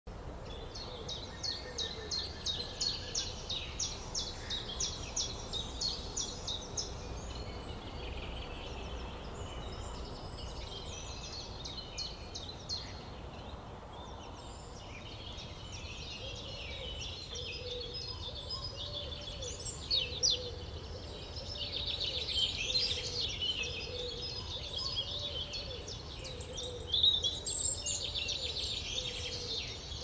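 Several songbirds singing, with a fast trill of many repeated notes in the first few seconds, over a faint steady low background rumble. A lower repeated note joins about halfway through.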